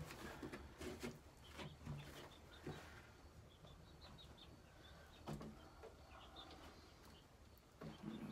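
Near silence with faint, scattered small taps and clicks as eggs are handled under a flashlight, and a few soft chirps from a broody hen.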